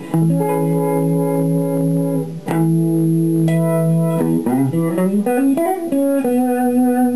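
Electric guitar chords played through an analog vibe pedal set near its default, middle knob settings, with a slight wavering on the sustained notes. There are a few strummed chords, a sliding chord change midway, and a held chord near the end.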